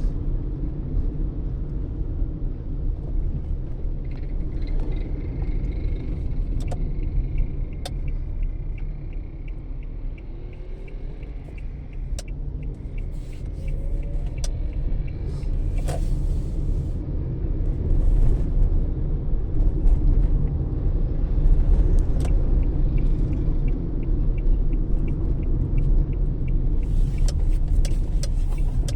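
Low rumble of a 2017 Toyota Etios on the move, heard from inside the cabin. For stretches a light, regular ticking runs over it.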